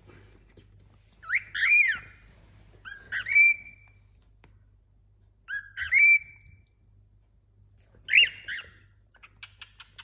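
Cockatiel whistling four separate calls a couple of seconds apart, each sliding up in pitch and then held briefly. A quick run of faint clicks follows near the end.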